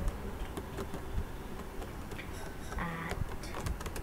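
Computer keyboard typing: irregular, scattered key clicks as text is entered into a form field.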